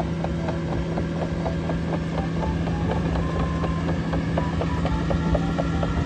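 Caterpillar AP655F tracked asphalt paver running, its diesel engine giving a steady low hum, with rapid irregular clicks and short squeaks from the machine over it.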